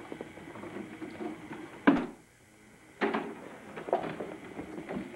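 A plastic toy doll carriage knocking and rattling as a toddler pushes it across the floor. About two seconds in there is one sharp, loud knock, then the sound breaks off for about a second before the clattering resumes.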